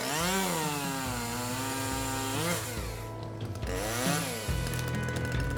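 A small engine revving up and falling back again several times, then running more steadily near the end.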